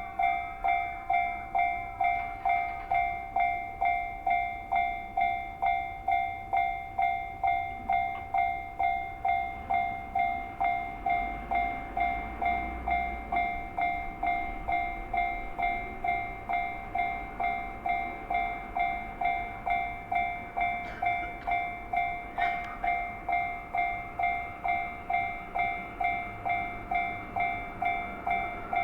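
Japanese railway level-crossing alarm ringing its steady electronic kan-kan tone, about one and a half strikes a second, as a Yamanote Line train passes over the crossing, its rumble heaviest around the middle.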